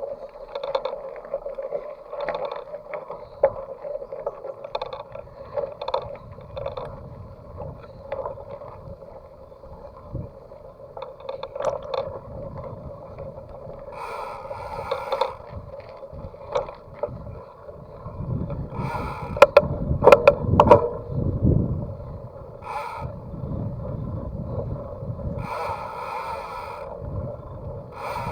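Mountain bike ridden along a road, picked up by the action camera mounted on it: a steady buzz from the Saturn Atlas 2.0 rear hub freewheeling, over tyre and road rumble. A cluster of loud knocks and rattles comes about two-thirds of the way through.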